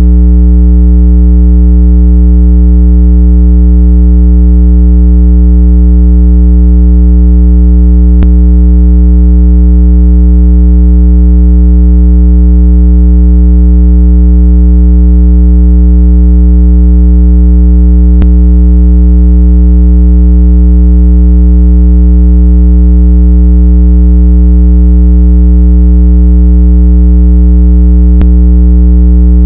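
Speaker-cleaning tone: a loud, steady, low electronic hum with a stack of overtones, unchanging in pitch, made to vibrate water and dust out of a phone speaker.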